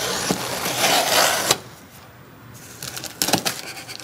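Scissor blade drawn along the packing-tape seam of a cardboard box, a long scraping slit that stops about one and a half seconds in. It is followed by a few short clicks and snips as the tape at the end of the box is cut.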